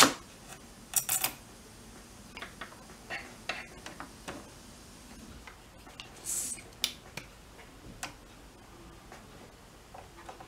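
Scattered light clicks and taps of a soldering iron tip and a metal pick against an amplifier circuit board as capacitors are desoldered. A sharper click comes at the start, a double click about a second in, and a short scratchy noise about six seconds in.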